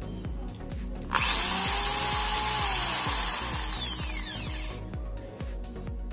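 Makita corded impact drill run with no load. The motor whines up suddenly about a second in, holds full speed for about two seconds, then winds down with a falling whine as the trigger is let go.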